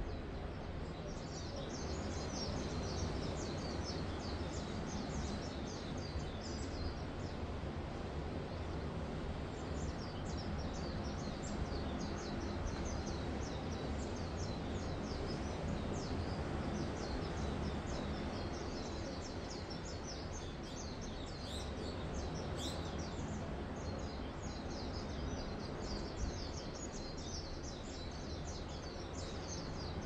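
A dense chorus of small birds chirping rapidly and without pause, over a steady low rush of gentle surf.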